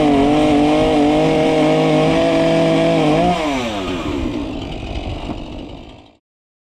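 Chainsaw running at full throttle, cutting into a charred wooden shed post; about three seconds in the throttle is released and the engine note falls in pitch as it winds down, then fades away.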